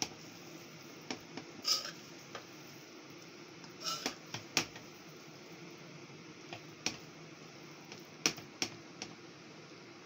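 A spatula and a metal spoon clinking and scraping against a metal pan while stir-fried noodles are tossed, in irregular sharp knocks over a steady low hum.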